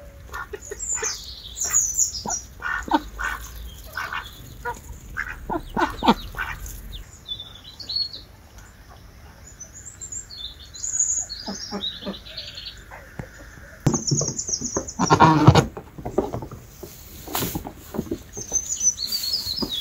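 Birds chirping and calling: many short high chirps and twitters mixed with lower, harsher calls, and one louder call about fifteen seconds in.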